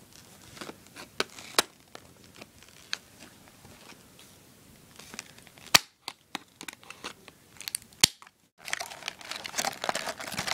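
Scissors cutting through a hard clear plastic blister package of earbuds: scattered small clicks and snips, two loud sharp cuts about six and eight seconds in, then the plastic crinkling steadily as the package is pulled open near the end.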